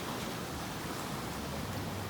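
Steady rushing noise of ocean surf, in a lull between breaking waves.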